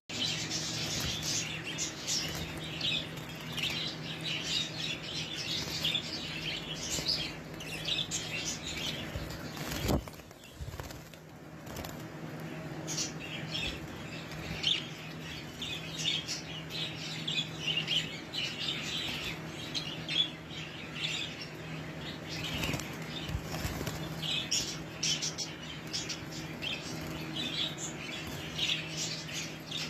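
A flock of caged budgerigars chattering in many quick, high chirps, with wings flapping as they scramble about the cage wire. A steady low hum runs underneath, and a single knock about ten seconds in is followed by a brief lull in the chatter.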